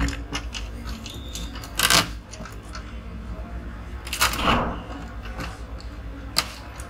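A few short clicks and clatters of an LED TV's backlight strips and metal frame being handled and unclipped by hand. They fall about two, four and six seconds in, over a low steady hum.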